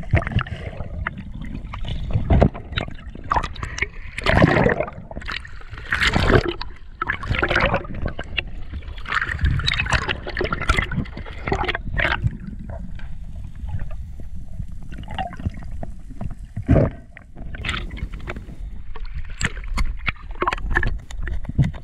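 Water sloshing and gurgling heard underwater, with irregular splashes and knocks as a diver handles a speared wahoo on the spear shaft.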